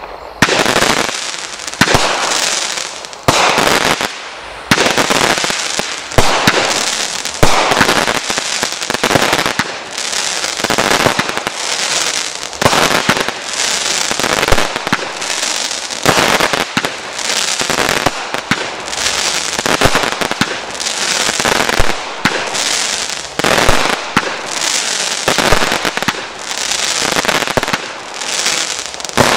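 A 19-shot consumer fireworks cake (multi-shot aerial repeater) firing shot after shot, about one a second. Each shot is a sharp bang that trails off in a hiss.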